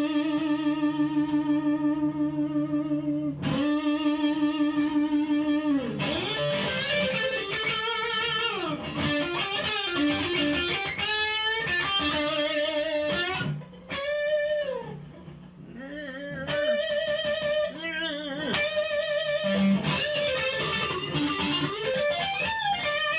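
Electric guitar, an upgraded Fender Player Telecaster through a Blackstar HT20 all-tube amp, playing a lead line of long held notes with wide vibrato and string bends that slide up and back down.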